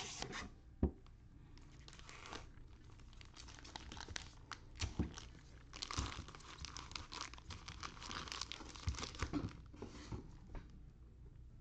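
Foil-wrapped Prizm football card packs crinkling and rustling as they are pulled out of the cardboard box and handled, with a few light knocks as they are set down in a stack.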